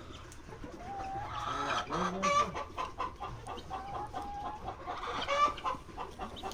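Chickens clucking and calling, in a couple of clusters of short pitched calls.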